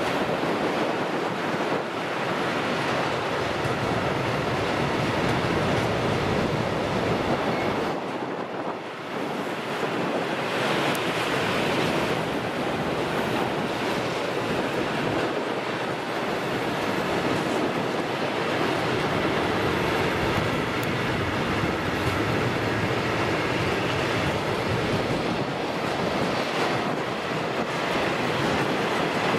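Freight train of pressurised gas tank wagons rolling past on a curve: a steady rumble and rattle of wheels on the rails.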